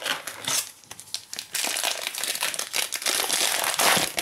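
Plastic trading card pack wrapper crinkling as it is handled and torn open: a few scattered crackles at first, then dense, loud crinkling from about a second and a half in.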